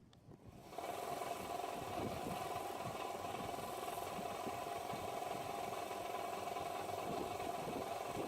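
Electric buffing wheel running steadily as a stainless steel part is polished on it, a continuous motor hum; the sound drops out briefly at the start and comes back just under a second in.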